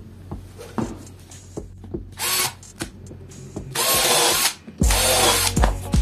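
Cordless drill working into an MDF block in three short runs, the motor whining up and stopping between them, with a few light knocks of handling.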